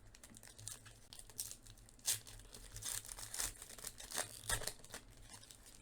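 Crinkling and tearing of a trading-card pack wrapper as it is opened and the cards handled, in a run of irregular crackles with the sharpest ones about two seconds in and again near four and a half seconds.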